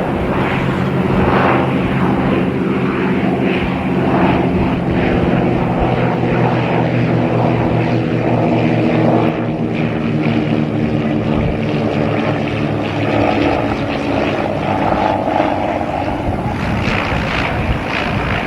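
Aircraft engines running with a steady drone of several pitches, sagging slightly in pitch in the second half.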